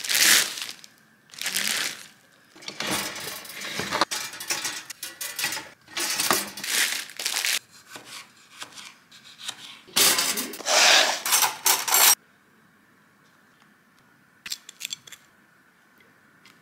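Kitchen food-preparation noises: a plastic bread bag rustling, a knife cutting tomatoes on a plastic chopping board, and clinks of dishes, in several short bursts. The noises stop abruptly about twelve seconds in, leaving a faint steady hum and a few light clicks near the end.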